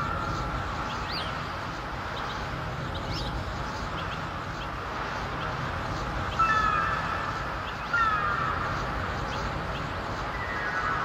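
Steady wash of sea surf with gulls crying a few times, short falling cries near the start and about six and eight seconds in. Near the end a song's musical intro starts to come in.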